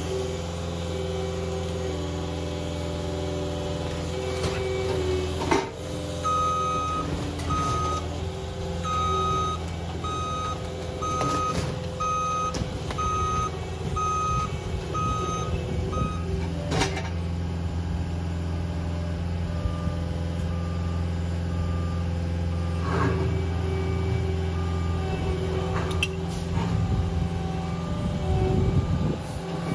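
Diesel engine of a CAT skid steer loader running steadily, its reverse alarm beeping just under a second apart from about six seconds in until about sixteen, then again more faintly later on. A few sharp knocks come through over the engine.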